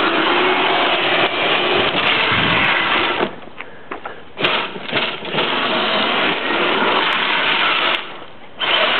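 Toy ride-on Jeep's electric drive motors and gearboxes running overvolted at 36 volts instead of 12, with its plastic wheels rolling on asphalt. The whine sounds like a power drill and drops away briefly twice.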